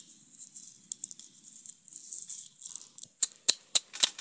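Faint rustling, then a quick run of sharp, light clicks and rattles near the end: a clear plastic spoon knocking and scraping in a small plastic toy plate holding loose rice grains.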